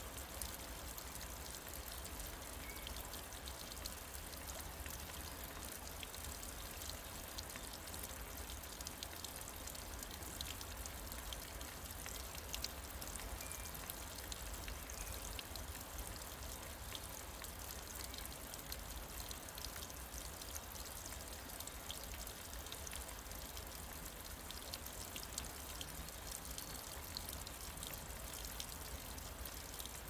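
Thin streams of water trickling down a mossy rock face and splashing onto wet leaves: a steady hiss of running water dotted with many small drips.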